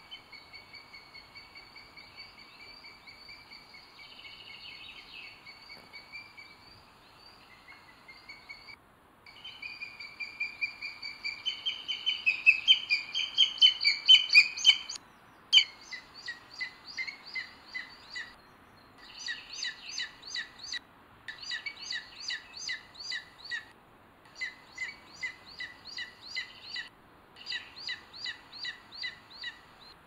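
Booted eagles calling at the nest. A soft, fast series of high, repeated notes grows louder and peaks about halfway through, as a second eagle lands. The calling then goes on as bursts of rapid, shrill notes, each a couple of seconds long, with short pauses between them.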